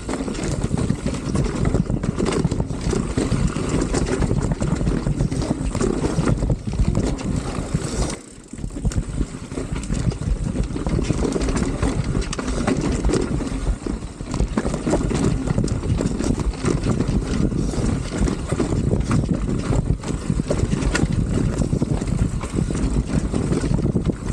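Wind buffeting the microphone and a mountain bike rattling over a rough rock-and-dirt trail at speed, with frequent knocks as the wheels hit rocks. The noise dips briefly about eight seconds in.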